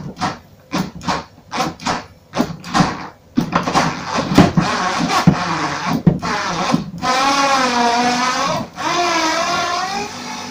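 Hand screwdriver turning out the screws of a Sharp CRT television's plastic back cover: short scraping, creaking strokes about three a second that grow denser. A louder wavering pitched sound runs over it for the last few seconds.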